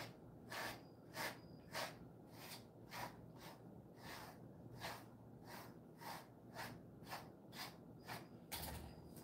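A grooming brush stroking through a Jindo dog's thick coat: short, faint, hissing strokes at a steady rhythm of about two a second, one slightly louder near the end.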